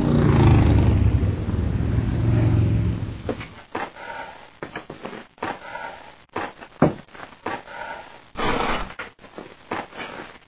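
A quad bike (ATV) engine running as it drives, cutting off about three seconds in. Then a series of short scraping crunches, a shovel digging into dirt, about one a second.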